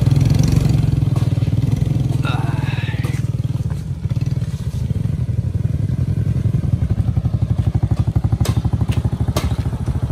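Small motorcycle engine running steadily at low revs with a fine, even pulse. There is a short sliding higher-pitched sound about two seconds in, and two sharp knocks near the end.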